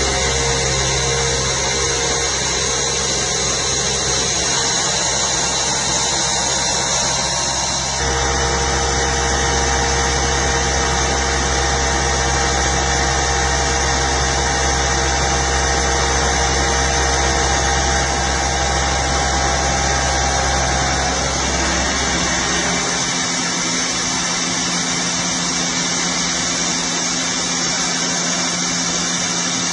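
Large industrial milling machine running: a steady mechanical hum with held whining tones over a constant hiss. The sound changes abruptly about eight seconds in, and the low hum drops away a little past twenty seconds.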